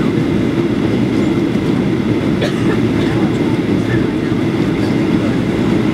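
Steady cabin roar of a Boeing 737-800 on approach, heard from a window seat: its CFM56-7B engines and the airflow over the fuselage.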